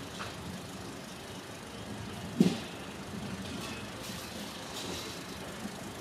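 Generator running steadily, with one sharp, loud knock about midway through from a stall tent being taken down.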